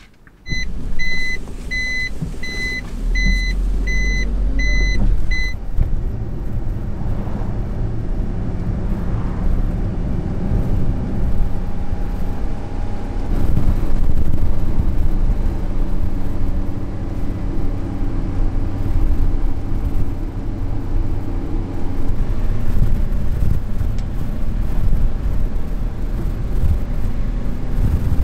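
Inside the cab of a Suzuki vehicle: an electronic warning beep pulsing about twice a second for the first five seconds, then the steady engine and road noise of the vehicle driving.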